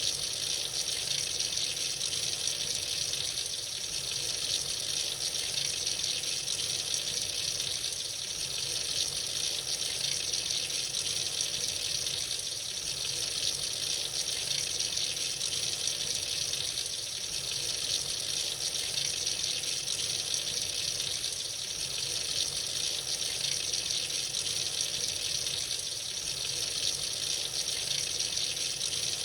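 Tap water running freely into a sink in a steady, unbroken stream.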